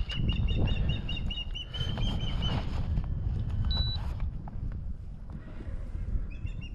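Wind buffeting the microphone as a steady low rumble. Over it, a bird's rapid run of repeated high chirps lasts the first two and a half seconds and starts again near the end.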